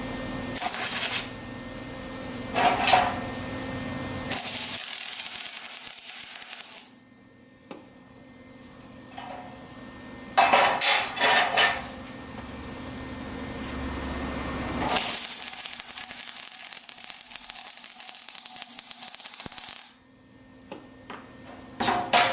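MIG spool gun welding aluminium with argon: two runs of steady arc hiss, a short one and a longer one of about five seconds, with metal clinks and knocks of workpiece handling in between.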